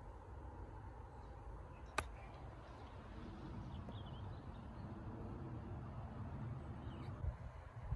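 A single sharp click of a golf club striking the ball on a chip shot, about two seconds in, over a low steady rumble. A few faint bird chirps follow.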